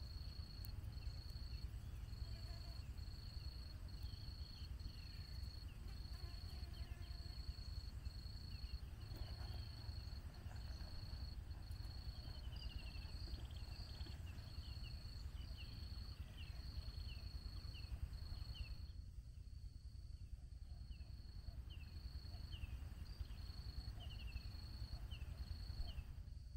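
Insects calling: a steady, high-pitched cricket-like trill broken by regular brief gaps, with a second series of short chirps repeating about twice a second, clearest in the second half, over a low rumble.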